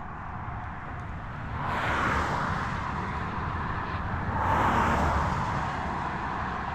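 Two vehicles passing one after the other on a nearby road, each a swell of tyre and engine noise that rises and fades over a second or so, over a steady low rumble of wind on the microphone.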